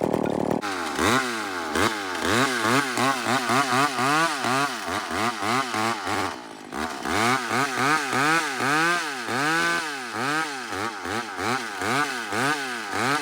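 Chainsaw engine revved in quick repeated throttle pulses, its pitch rising and falling about twice a second, with a short lull about six and a half seconds in, as the saw cuts a felling wedge out of the cut.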